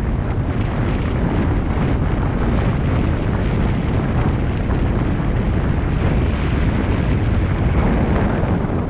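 Car driving along a paved road: a steady low rumble of road, engine and wind noise, with wind buffeting on the microphone.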